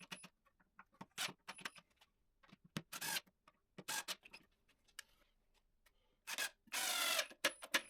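Workshop assembly noises from fitting wooden toolbox parts: scattered clicks and knocks with a few short rasping bursts, the longest and loudest about seven seconds in.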